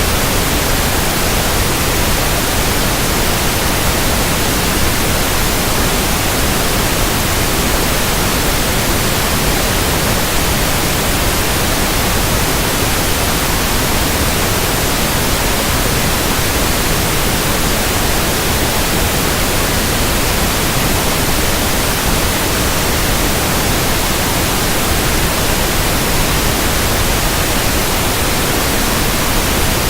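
Pink noise test signal for speaker testing: a loud, steady hiss spread evenly from deep bass to high treble, with no change in level or character.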